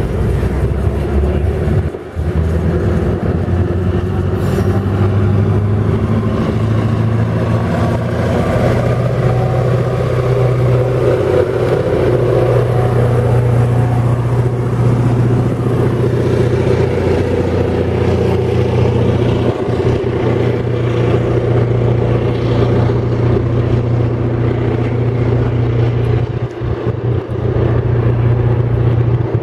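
Diesel locomotive engine running with a steady low drone.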